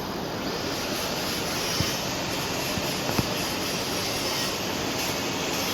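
Steady hissing noise of argon (TIG) welding in progress, with two faint clicks.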